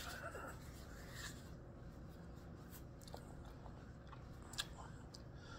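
Quiet room with faint rustling and a few small clicks, one sharper click about four and a half seconds in.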